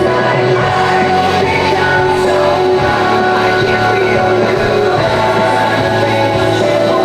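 Music with a singing voice, playing at a steady loud level.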